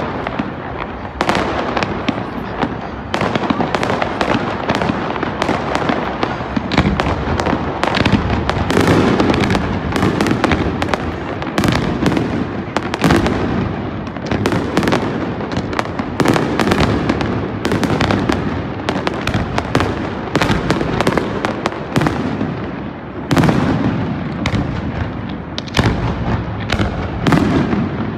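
Fireworks display in full flow: a continuous barrage of aerial shell bursts and crackle, several sharp reports a second with no let-up.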